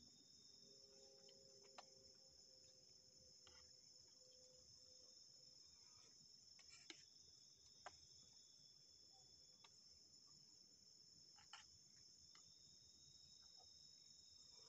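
Faint, steady high-pitched drone of insects, with a second thinner steady tone just below it. A few sharp clicks come through it, about two, seven, eight and eleven and a half seconds in.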